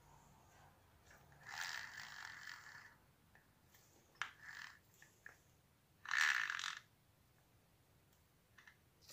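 Mechanical rasping and clicking from an opened 1980s Celma electric drill being handled: two short bursts of rasping, the later one louder, with a few sharp clicks between them.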